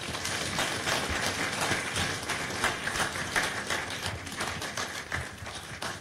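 Audience applauding: many people clapping densely and steadily, starting all at once.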